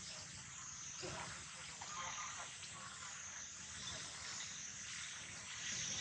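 Outdoor rural ambience: a steady high-pitched hiss with a few short, faint croak-like animal calls.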